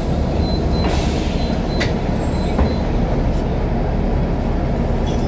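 Bus engine running, a steady low rumble heard from inside the cabin, with a short hiss of air about a second in.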